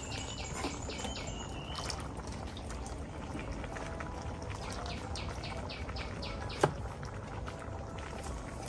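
Birds calling in two runs of rapid, evenly spaced chirps, with a short whistled note in the first couple of seconds. A single sharp knock about six and a half seconds in is the loudest thing.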